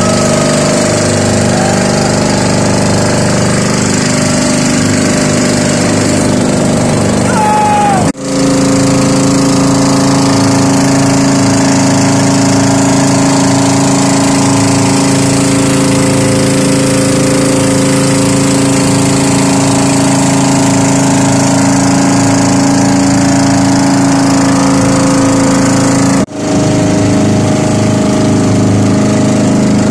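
Outrigger fishing boat's (bangka's) engine running steadily at cruising speed, loud and even in pitch. The sound drops out for a moment twice, then resumes.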